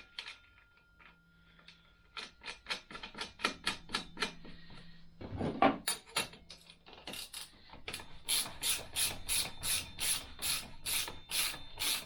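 Ratchet wrench clicking in quick, even strokes, about four a second, as the front axle nut of a Honda Grom is run down.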